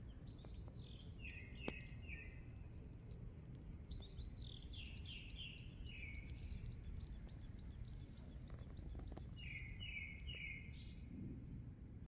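Small birds chirping: short three-note phrases near the start and again near the end, and a quick run of repeated high, falling notes in between. A steady low rumble lies underneath.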